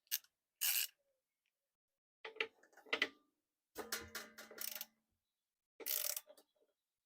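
Ratchet wrench with a socket clicking in several short bursts as the air compressor's oil drain plug is undone; the plug is only touch tight.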